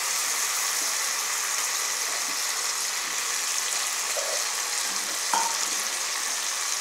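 Butter beans, tomatoes, onions and green chillies sizzling steadily in hot oil in an aluminium pressure cooker, with one light tap a little past five seconds in.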